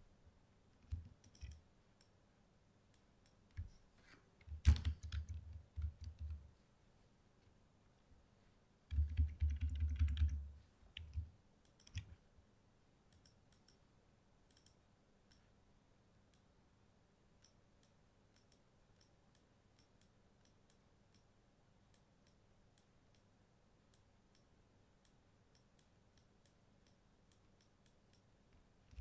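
Sparse, light clicks of a computer mouse and keyboard during retouching work. There are two louder spells of low bumping, about five and nine seconds in.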